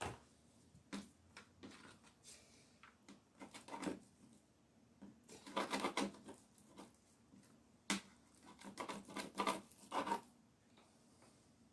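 Knife tapping and scraping on a tray while slicing raw streaky bacon: scattered light clicks, busiest in two spells around the middle and a little later.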